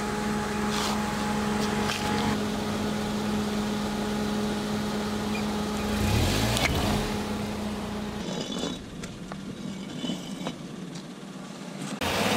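Mercedes-Benz car engine idling with a steady hum. About six seconds in it gets louder, its pitch rising and falling for a moment, then it is quieter for the last few seconds.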